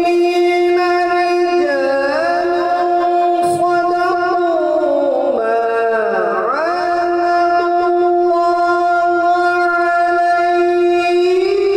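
A man's voice in melodic Quran recitation (tilawat), chanting long drawn-out notes. The pitch holds steady, then slides slowly down in an ornamented run to a low dip about six seconds in and climbs back to the held note.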